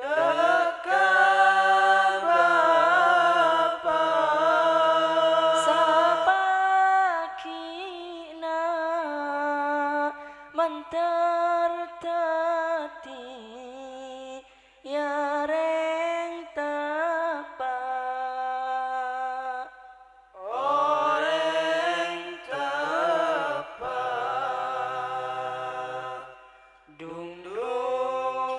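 Male voice singing an Islamic sholawat (sholawat bhenning) a cappella through a microphone and PA, in long melismatic phrases with short pauses between them. A low held note sounds underneath during two passages, near the start and about two-thirds of the way through.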